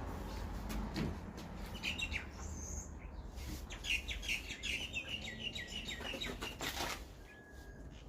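Birds chirping, with a quick run of short repeated chirps in the middle, over a steady low rumble.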